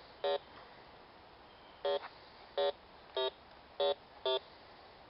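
Metal detector beeping six times in short, uneven beeps over a buried metal target as the signal is pinpointed.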